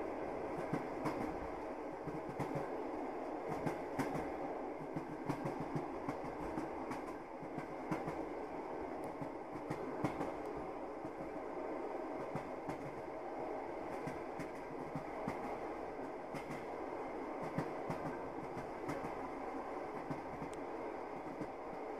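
Passenger train running, heard from inside the carriage: a steady rumble with the irregular clatter of wheels over the rails.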